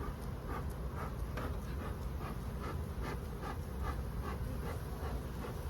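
Bee smoker's bellows being pumped in a steady rhythm, short breathy puffs of air about two to three a second, over a steady low rumble. The hive is being smoked to calm the bees.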